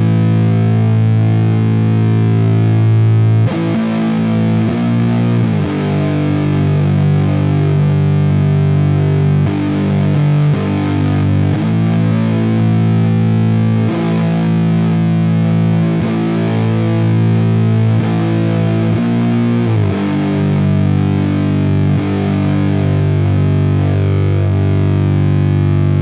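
Electric guitar played through a DIY copy of the Model T JFET amp emulator pedal, a pedal voiced after the Sunn Model T amp: heavily distorted, in a slow riff of low chords, each held and ringing for a few seconds before the next.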